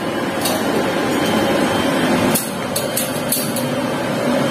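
Metal wire pet cage clinking and rattling a few times as it is handled, a single clink about half a second in and a quick cluster later, over steady background hum.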